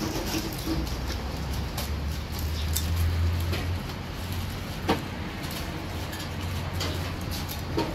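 A low motor rumble that swells about three seconds in, with two sharp clicks of metal tongs against the wire frying basket.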